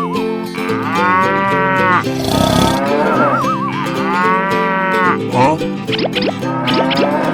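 A cow mooing twice, two long calls rising and falling in pitch, over cheerful background music. Near the end come a few short rising cartoon-style sound effects.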